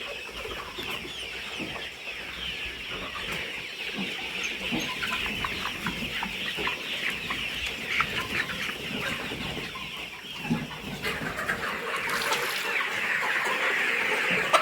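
A flock of about ten-week-old chickens clucking and cheeping together in many overlapping short calls, getting louder about eleven seconds in.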